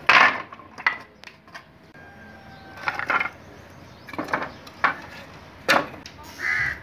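Irregular knocks and clatter of hard, woody objects striking one another, about eight in all at uneven intervals, the loudest right at the start.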